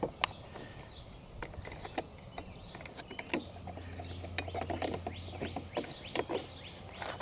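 Irregular small clicks and taps of hands working a cable and its plastic plug while connecting it to a battery monitor. A faint low hum comes in for a couple of seconds about halfway through.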